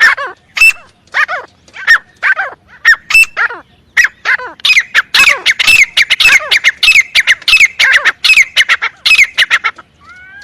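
Teetar (francolin) calling: a series of loud, harsh repeated call notes, spaced at first, then coming faster and crowding together from about halfway in, before stopping shortly before the end.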